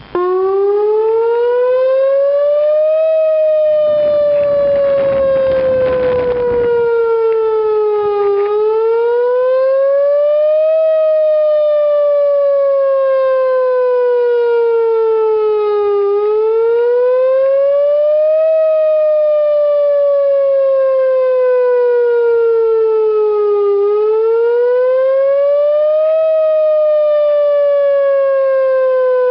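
Whelen WPS-2904 electronic outdoor warning siren sounding a wail on test. The tone starts abruptly, rises for about two and a half seconds, falls for about five, and repeats in slow cycles of roughly eight seconds.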